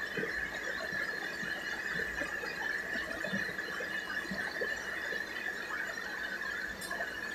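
A steady high-pitched whine that holds one pitch without a break, over a faint crackle.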